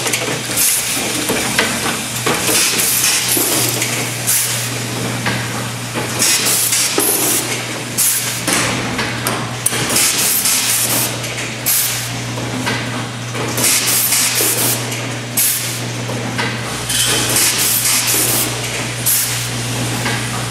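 Automated grommet dial-table assembly machine running its cycle: short hisses of air release every second or two from its pneumatic stations, and metallic clinks and knocks of parts and tooling, over a steady low hum.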